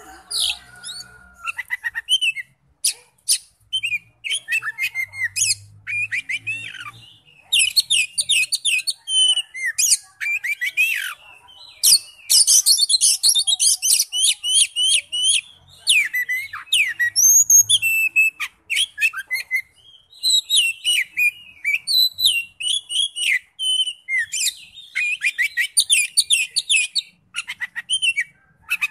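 Oriental magpie-robin singing: a fast, varied run of sharp whistles, chirps and quick trills in phrases broken by short pauses.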